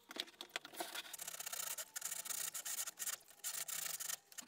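Japanese flush-cut pull saw, using its rip teeth, sawing along the grain of a pine box side in quick back-and-forth strokes, a dry rasping that comes in several stretches with short pauses between them.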